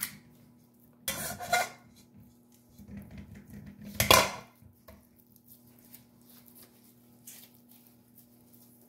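Metal spring-handled meatball scoop scraping and knocking against a stainless-steel mixing bowl while scooping ground-beef mix, with one sharp ringing clank of metal on metal about four seconds in.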